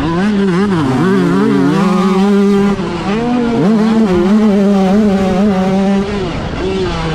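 Yamaha YZ125 two-stroke motocross bike ridden hard. Its engine pitch dips and climbs with throttle changes over the first two seconds, then holds high and steady, backing off briefly about three seconds in and again about six seconds in.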